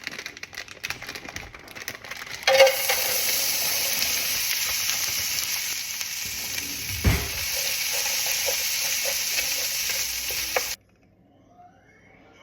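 Chicken fried rice sizzling in a hot pan, the loud hiss starting suddenly about two and a half seconds in, with a few stirring knocks and a thump about seven seconds in, then cutting off abruptly near the end. Light clicks and rustling come before the sizzle.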